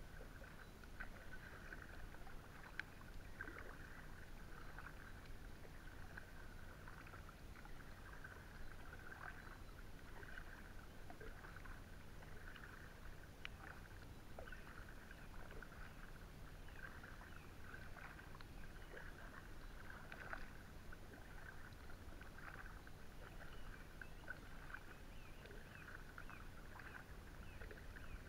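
Kayak paddle strokes: the blade dipping and pulling through calm river water with soft, regular splashes and drips, and occasional small clicks of the paddle against the inflatable kayak.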